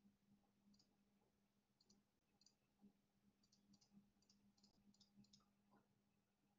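Near silence: faint, irregular clicks, about a dozen and bunched in the second half, over a low steady hum.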